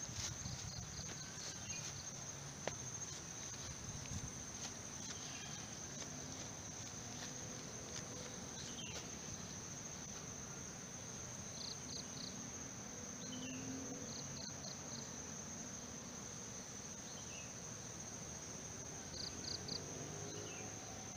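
Insects trilling in vegetation: a steady high-pitched trill, with a few short groups of three or four quick chirps on top.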